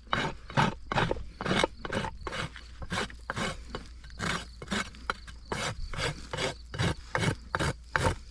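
Hoof rasp filed in quick, repeated strokes across a horse's hind hoof wall, about two or three strokes a second, putting a 45-degree bevel on the hoof wall during a barefoot trim.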